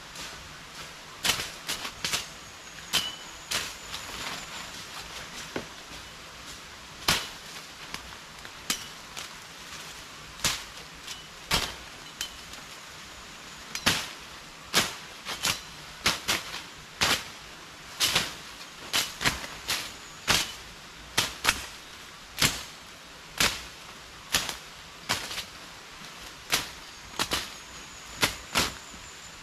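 Machetes chopping and slashing through undergrowth and brush: sharp, irregular chops, about one or two a second, from more than one worker.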